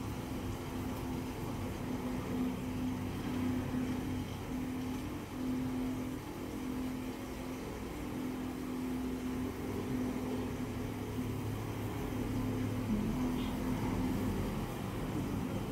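Steady low hum of a running motor, its pitch wavering slightly.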